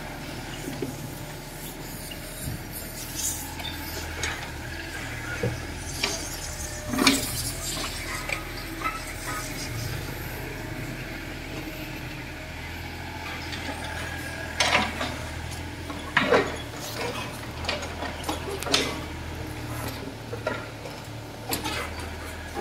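Mini excavator's diesel engine running steadily, with scattered metallic clinks and knocks over it, a few louder ones about 7, 15, 16 and 19 seconds in.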